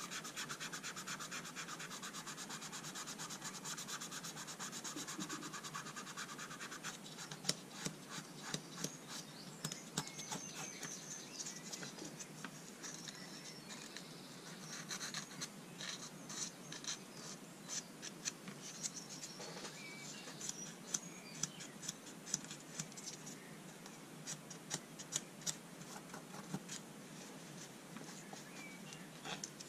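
Fast, steady scratchy rubbing on the brass end fitting of an old boxwood folding rule as it is hand-polished. About seven seconds in it turns to short, irregular scrubbing strokes broken by sharp ticks and clicks.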